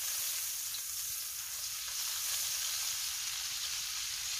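Butter melting in a little hot oil in a nonstick wok, with a steady sizzle.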